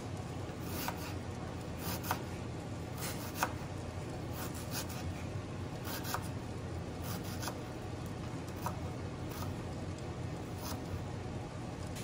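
Kitchen knife slicing ginger on a plastic cutting board: irregular sharp taps of the blade meeting the board, roughly one a second, over a steady low hum.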